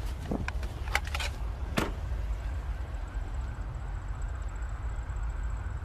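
Steady low vehicle rumble, with a few sharp clicks and knocks in the first two seconds and a faint high whine from about two seconds in.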